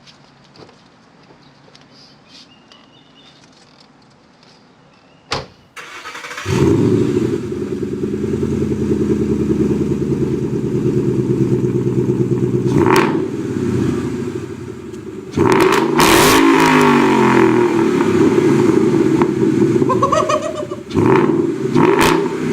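After a few seconds of quiet and a click, a Ford Mustang's engine with an aftermarket exhaust starts about six seconds in and idles loudly. It is then revved several times, its pitch rising and falling.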